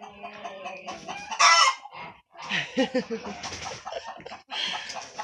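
Chickens clucking and calling, with one short, loud call about one and a half seconds in.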